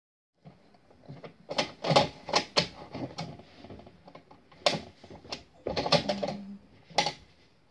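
Irregular knocks and taps close by, about a dozen over several seconds and uneven in spacing, with the loudest clusters around two seconds in and again near six seconds.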